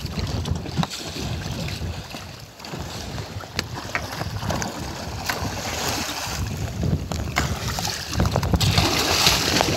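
Wind buffeting the microphone over sea water sloshing and splashing against the side of a small fishing boat, with a louder rush of splashing about nine seconds in.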